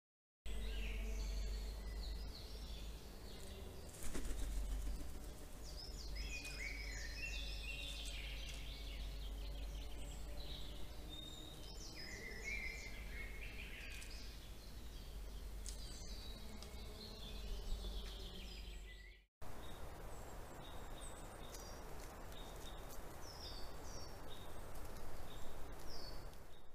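Wild songbirds singing and chirping, many short phrases of high notes over a steady low hum, with a single sharp knock about four seconds in. The sound breaks off briefly near the end, then more short high bird chirps follow.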